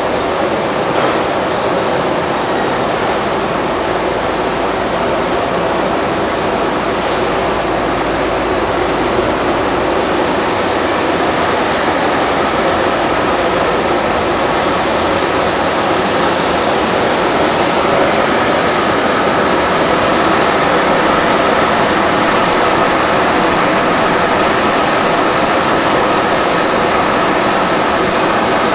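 Automatic packaging machine for aerosol cans running: a steady rushing hiss of factory machinery with a faint even hum underneath, no distinct strokes standing out.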